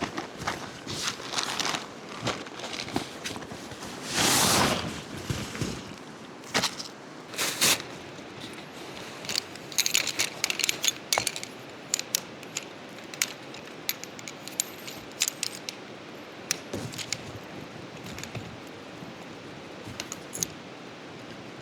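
Camping gear being handled: a run of light metallic clinks and rattles with some rustling, a longer scraping, crunching noise about four seconds in, and a quick flurry of clinks about ten seconds in.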